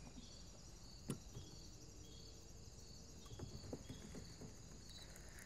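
Faint outdoor quiet with insects chirping, a short high call repeated about twice a second. A single click comes about a second in.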